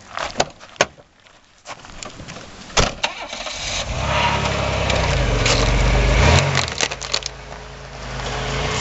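A car door clicks open and shuts with a thud, then a V6 car engine starts and runs, revving up about halfway through, dropping back, and rising again near the end.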